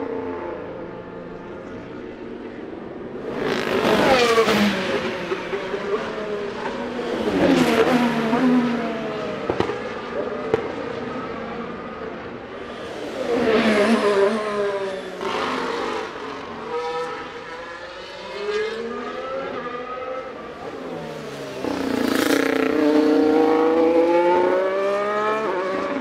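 2023 Formula 1 cars, with turbocharged 1.6-litre V6 hybrid engines, passing at speed one after another. Loud passes come about four, eight and fourteen seconds in, each engine note dropping in pitch as the car goes by. From about twenty-two seconds a car accelerates with its revs climbing.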